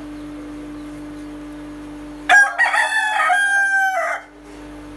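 Rooster crowing once, a loud cock-a-doodle-doo lasting about two seconds, beginning a little over two seconds in after a steady background hum.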